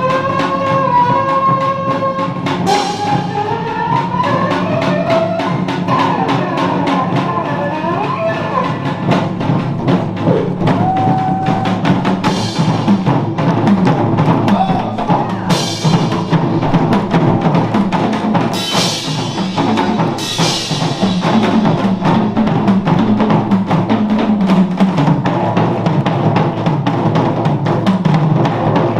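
Background music with a steady drum beat and a melody line, with cymbal crashes now and then.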